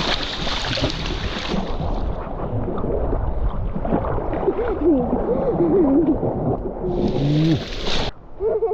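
Choppy sea water sloshing and splashing around a camera held at the water's surface, with wind on the microphone; the splashing is loudest at the start and again near the end.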